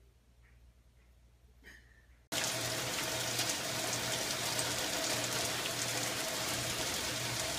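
Near silence with a few faint soft sounds, then, a little over two seconds in, steady rain starts suddenly: an even hiss of rain falling on a wet wooden deck.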